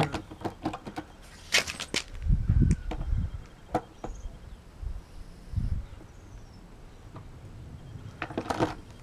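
A red plastic object knocking and scraping on gravel with handling noise: scattered sharp clicks, a burst of scraping about a second and a half in and again near the end, and low dull thumps around the middle.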